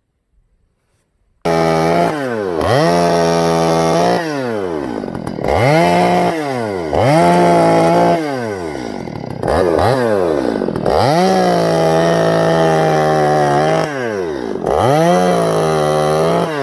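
Two-stroke chainsaw running at full throttle, its engine note repeatedly dropping away and climbing back up as the throttle is let off and squeezed again. It starts suddenly about a second and a half in.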